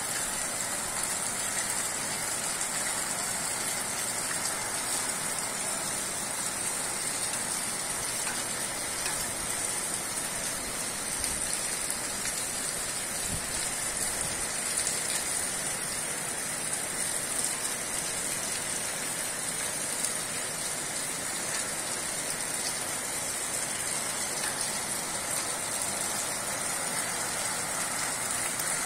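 Steady rain from a tropical storm falling on the street and rooftops, an even unbroken hiss.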